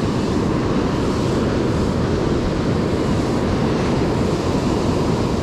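Steady rush of surf on the beach mixed with wind on the microphone, an even, unbroken noise.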